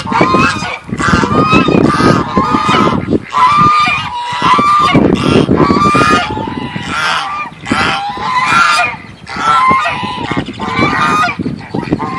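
A flock of geese honking, many loud calls overlapping almost without a break.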